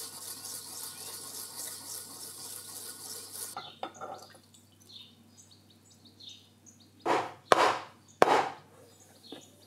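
Bamboo whisk scraping fast against a ceramic bowl, whisking matcha, for about three and a half seconds. Then a short pour into a cup. Near the end come three loud knocks as a stainless steel jug is handled on the counter.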